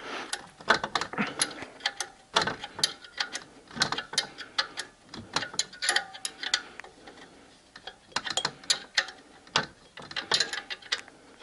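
Ratchet wrench clicking in quick bursts of strokes with short pauses, as the 12 mm lower alternator mounting bolt is tightened after the drive belt has been tensioned.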